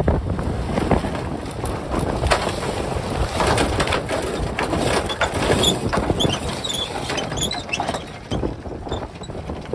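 Sailing yacht's deck gear and lines working in strong wind: a run of clicks and knocks, with a few short high squeaks about six to seven seconds in, over the rush of wind on the microphone.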